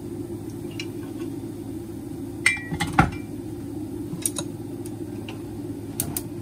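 Glass seasoning bottles clinking as they are handled and set down: a cluster of sharp clinks about two and a half to three seconds in, the loudest near three seconds, two more a little after four seconds and two near the end, over a steady low hum.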